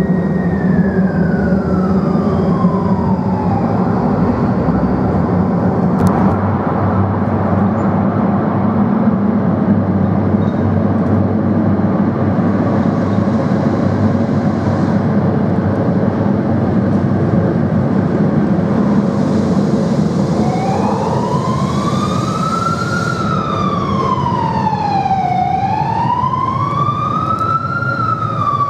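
Tatra tram rumbling along the rails through a tunnel, with a falling whine in the first few seconds. From about two-thirds of the way in, a wailing emergency-vehicle siren rises and falls every two to three seconds over the rumble.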